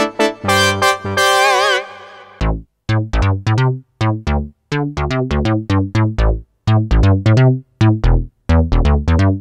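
Sequential Circuits Prophet-5 rev 3 analog polysynth played. Near the start it sounds struck chords with a wavering vibrato that fade out. From about two and a half seconds in, it plays a choppy run of short, quickly decaying stabs over bass notes, with brief silences between them.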